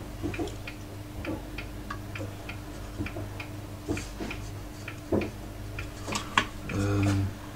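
Light, regular ticking, about three ticks a second, over a steady low hum, with a few louder clicks in the second half.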